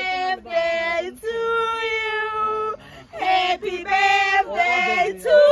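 Young women singing with long held notes, sung without instruments.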